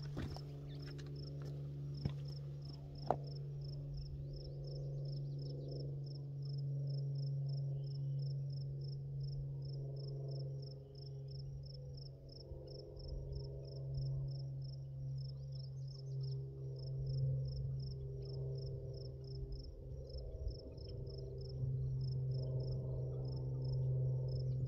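Crickets chirping steadily, a fast even rhythm of high chirps about three a second, over a low steady hum.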